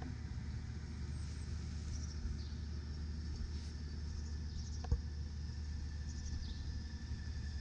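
Outdoor ambience: a steady low rumble with faint, short high bird chirps that fall in pitch every second or two, and a single sharp click about five seconds in.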